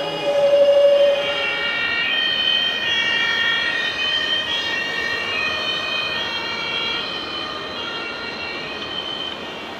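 Electronic sirens of radio-controlled model fire trucks sounding together, several high tones stepping up and down in pitch, from about two seconds in. Before that a single steady lower tone sounds for the first second and a half.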